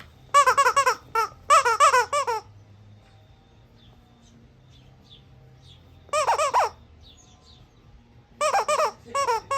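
Squeaky squishy toy being squeezed by an eclectus parrot, giving quick runs of short high squeaks, four to six at a time. Several runs come in the first two and a half seconds, another about six seconds in, and two more near the end.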